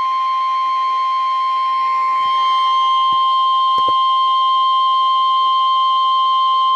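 NOAA Weather Radio's 1050 Hz warning alarm tone: a single steady tone held without a break, heard through a radio receiver. It is the signal that an emergency warning broadcast follows.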